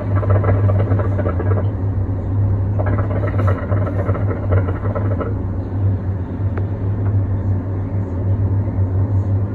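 Hookah water bubbling in the base as smoke is drawn through the hose: two long pulls, the first ending about a second and a half in, the second from about three to five seconds in. A steady low hum runs underneath throughout.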